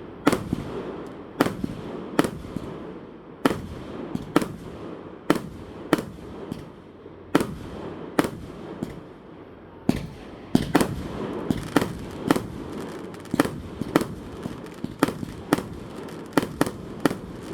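Aerial fireworks bursting: a string of sharp bangs, roughly one a second, over a steady rumbling crackle, coming faster and closer together from about ten seconds in.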